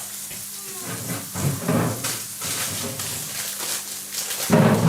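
Vegan burger patties sizzling in oil in a frying pan, a steady hiss, with a few knocks and bumps of pan handling, the loudest near the end.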